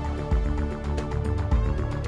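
Background music with a steady beat and sustained notes.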